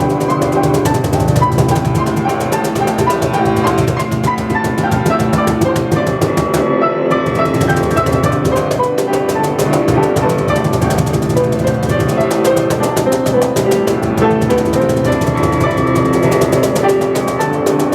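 Instrumental music played live by a band: a fast, busy keyboard melody of quick repeated notes over steady drums and percussion, with no singing.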